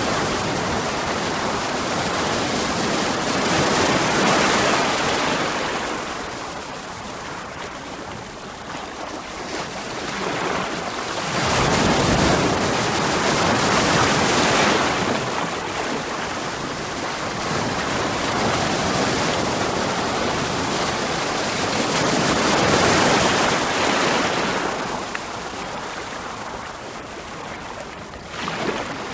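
Sea waves breaking on rocks: a continuous wash of surf that swells into loud surges every several seconds and falls back between them.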